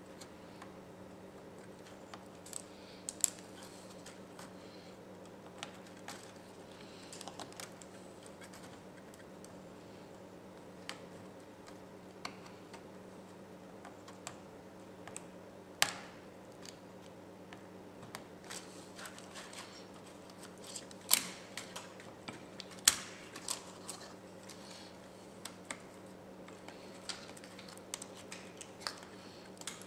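Hands threading thin wires through an opened HP Pavilion laptop's plastic chassis: scattered small clicks and taps, with a few sharper ones, over a faint steady hum.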